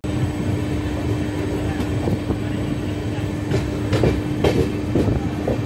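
Express passenger train running on the track: steady running noise with a steady hum, and a few sharp clacks of the wheels over rail joints from about three and a half seconds in.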